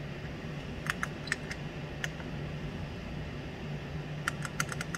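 Sharp clicks of the Roland SP-540V printer's control-panel keys being pressed as alignment values are entered: a few separate presses in the first two seconds, then a quick run of about six near the end. A steady low hum runs underneath.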